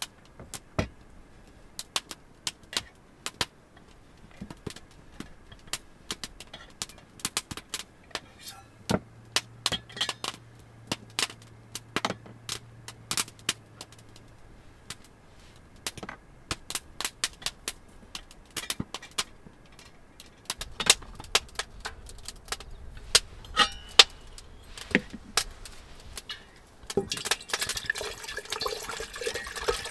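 Camping gear being unpacked from the back of a car: a string of sharp clicks, knocks and clinks of hard cases and metal items being handled and set down. Near the end, water pours from a bottle into a stainless steel kettle as it fills.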